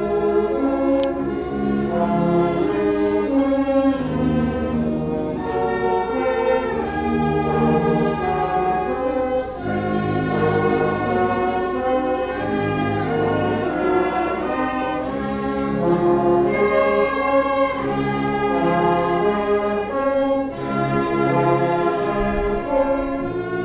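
Orchestral music with sustained chords.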